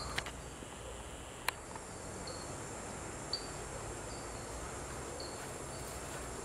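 Steady high insect chorus with short, high chirps recurring every second or so, and a sharp click about a second and a half in.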